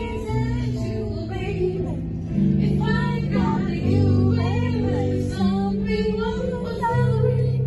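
Background music: a song with a singing voice over held bass notes that change every second or so.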